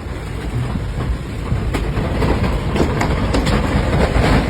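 Strong wind rushing and buffeting, a loud low rumble with scattered sharp knocks, from the winds around a tornado.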